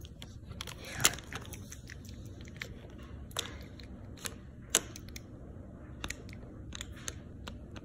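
Small plastic toy figure and plastic toy tray being handled on a hard stone countertop: scattered light taps and clicks, the sharpest about a second in and just before the five-second mark.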